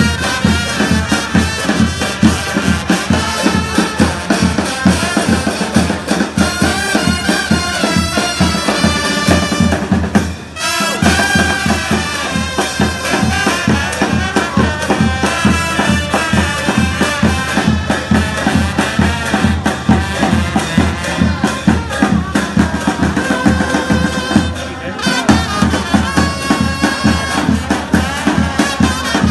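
Loud festive band music with brass and wind instruments over a steady drum beat. It dips briefly about ten seconds in.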